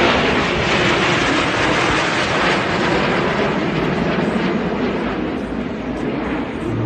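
Jet engines of an aerobatic formation flying overhead: a steady rushing roar that eases off slightly near the end.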